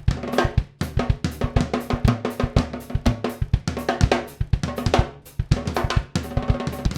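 Music: a drum kit playing a fast, busy beat with cymbals, over steady low bass notes.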